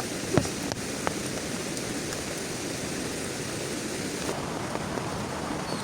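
Heavy rain falling steadily, with a few sharp drop taps in the first second.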